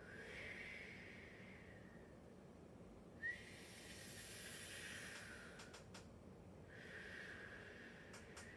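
A woman breathing slowly and audibly in a deep-breathing exercise: three long breaths with a faint whistling edge, and a short click about three seconds in.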